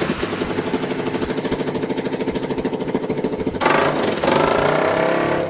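Kawasaki KLR650 single-cylinder four-stroke engine running with an even, rapid beat, then louder and rougher from about three and a half seconds in. It runs through an FMF exhaust with a broken pipe, which makes it loud.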